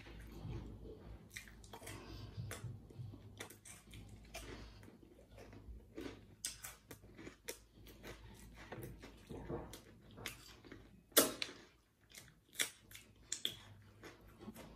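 Chewing a wet mouthful of galeta breadcrumbs mixed with spicy ketchup, with sticky mouth clicks and lip smacks throughout. A sharper, louder click comes about eleven seconds in.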